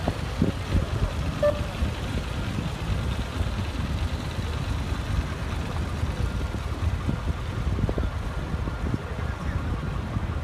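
Low, uneven rumble of wind buffeting the phone's microphone, mixed with the engine and tyre noise of cars moving on the pavement.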